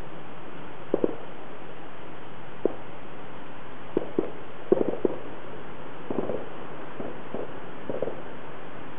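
Fireworks bursting several kilometres away, heard as about ten short, muffled pops and thuds, some coming in a quick cluster in the middle, over a steady hiss.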